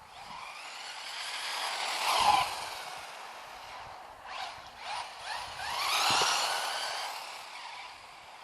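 Brushless electric FTX Vantage RC car with a 3600 kV motor making two fast passes. Its high motor and gear whine rises to a peak about two seconds in and again about six seconds in, with short throttle bursts between the passes.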